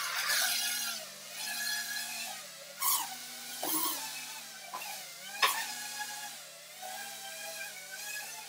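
Micro FPV quadcopter's motors whining, the pitch rising and falling with throttle, with three sharp knocks around the middle, the loudest about five and a half seconds in.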